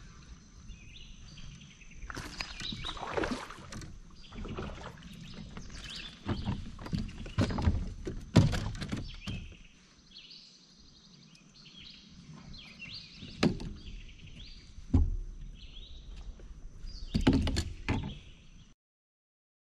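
Knocks, thumps and shuffling from an angler moving about and handling gear in a plastic Hobie fishing kayak, a few loud knocks standing out. Birds chirp in the background, and the sound cuts off suddenly near the end.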